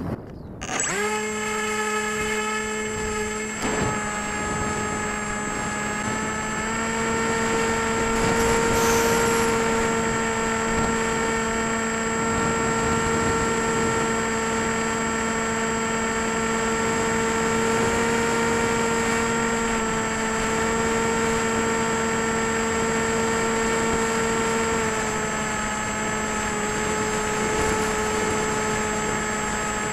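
Electric RC plane's brushless motor and propeller running at a steady whine, starting up about a second in. The pitch steps up a little about a quarter of the way through and drops back near the end as the throttle is changed.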